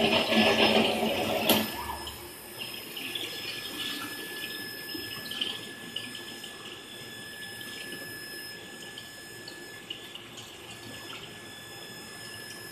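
Water rushing through an induction hardening machine, cut off by a sharp knock about a second and a half in. After that, a quieter steady machine background with faint high steady tones.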